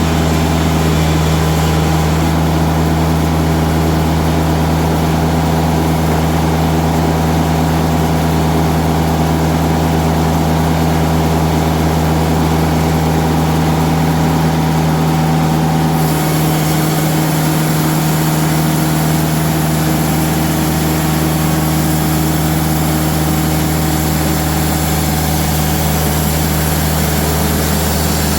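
Diesel engine of a TimberKing band sawmill running steadily, with a high hiss coming in a little past halfway.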